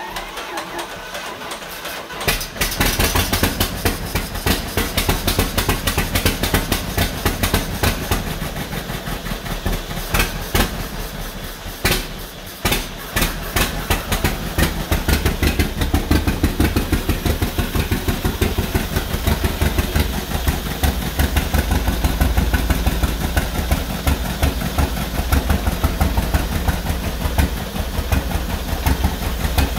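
1949 John Deere B's two-cylinder engine catching about two seconds in, then running with an uneven pulsing beat and stumbling briefly around the middle before it picks up again. It is running rough on its first start after a rebuild.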